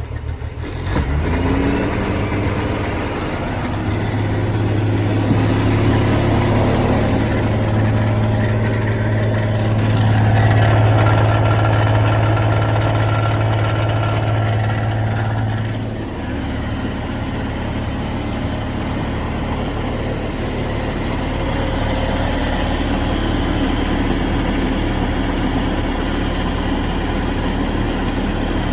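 1988 Sea Ray's engine, fed by a water hose, running steadily. About a second in it rises in speed as it goes into gear and holds there. About halfway through it drops back to a lower, steady idle.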